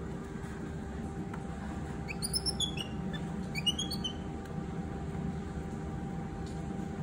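Baby monkey giving two short bursts of high, falling squeaky chirps, about two seconds in and again a second later, over a steady low hum.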